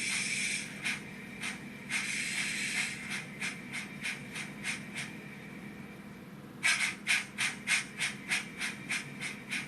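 Sound-fitted model steam locomotive playing steam exhaust chuffs through its small onboard speaker, opening with a burst of steam hiss. The chuffs run at about three a second, fade briefly, then come back louder at about four a second near the end.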